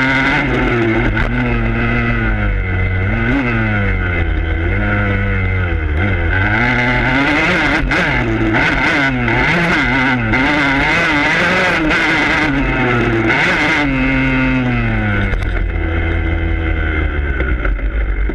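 Dirt bike engine heard close up from the handlebars, revving up and dropping again and again as the rider works the throttle and shifts around a motocross track. Near the end the revs fall and settle lower.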